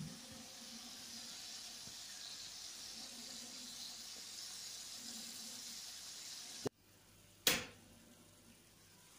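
Diced chicken frying in a pan with a steady sizzle. The sizzle cuts off suddenly nearly seven seconds in, and a single sharp, loud click follows under a second later.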